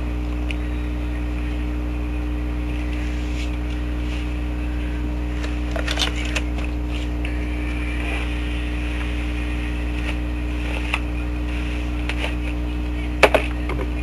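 Wet hair being gathered and brushed up into a high ponytail with a paddle brush: soft rustles and a few clicks from the hair and brush, the loudest a sharp double click near the end. A steady low hum runs underneath.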